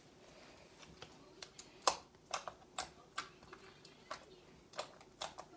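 Orange slime being pressed and poked by fingers, its trapped air popping in sharp clicks. The clicks come irregularly, about two a second, starting about a second in, with the loudest about two seconds in.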